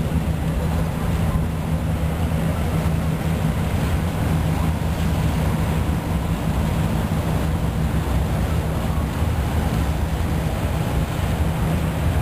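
Boat engine running with a steady low drone, over a constant wash of water and wind noise.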